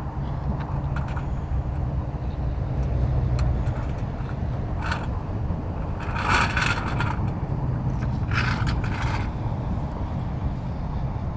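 A vehicle engine running steadily at idle, with a few short scraping, rattling noises in the second half, from the tools and jack work of the tire change.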